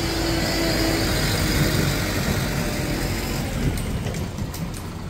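Tractor engine running, its sound dropping off about four seconds in, with a few sharp clicks near the end.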